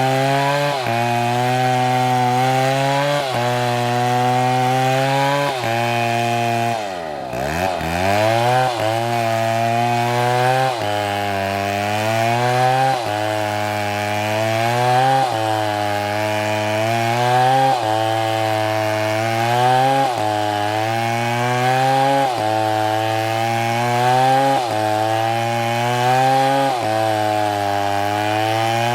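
STIHL chainsaw engine running at high revs while cutting oak, its pitch sagging under load and recovering in a regular rhythm about every two seconds. About seven seconds in the engine pitch falls sharply almost to idle, then climbs back to full revs.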